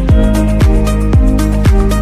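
Background electronic music with a steady beat, a kick drum about twice a second under sustained chords.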